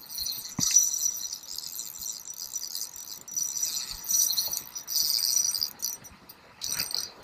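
Insects trilling in a high-pitched chorus that swells and fades every second or so, with a few soft knocks.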